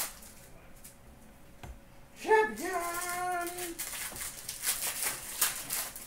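Hockey trading cards being sorted by hand, with quick light flicks and taps throughout that are busiest near the end. About two seconds in, a person's voice holds a drawn-out note, like a short hummed or sung phrase, for about a second and a half.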